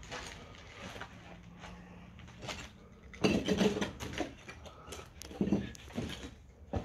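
Footsteps on loose rubble and debris: an irregular run of scuffs and knocks, loudest about three seconds in and again near the end.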